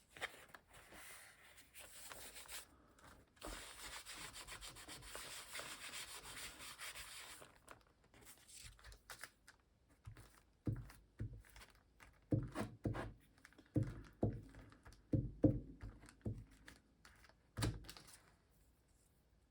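Paper being rubbed or brushed down for several seconds, then a run of soft knocks and paper handling on the table.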